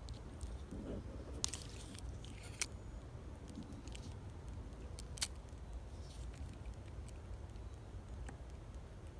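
Spinning reel and rod being handled for a cast: a few sharp clicks about one and a half, two and a half and five seconds in, over a low steady rumble.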